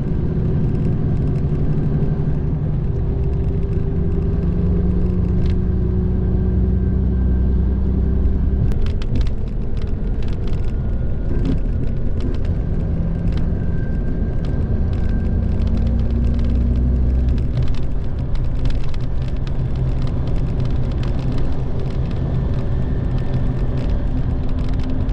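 Cabin sound of a Mitsubishi Fuso Aero Ace highway bus cruising on an expressway: steady diesel engine drone and road noise. The engine note shifts a few times, and from about nine seconds in there are frequent light rattling clicks.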